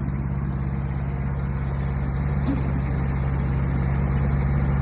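Mini excavator's engine running steadily as the machine digs, growing slightly louder about halfway through.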